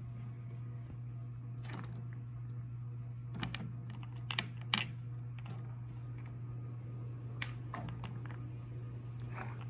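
Light clicks and taps of glass spice jars with plastic lids knocking together as they are handled in a wicker basket: scattered single clicks, bunched about three to five seconds in. A steady low hum runs underneath.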